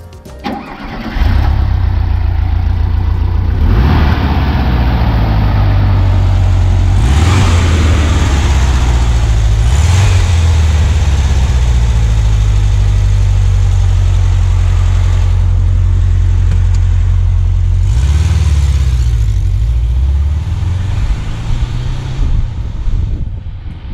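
Air-cooled, fuel-injected flat-four boxer engine of a 1979 Volkswagen Super Beetle idling steadily, with several short blips of the throttle. Near the end the sound turns quieter and uneven.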